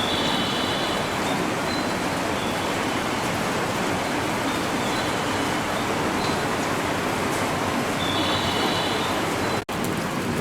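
Train running at the station platform: a steady rushing rumble with faint, brief high squeals coming and going. It cuts off abruptly near the end.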